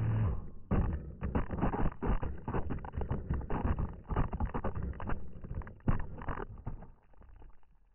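Wind buffeting the microphone: an irregular, gusty rumble with crackling surges that starts just under a second in and dies away near the end.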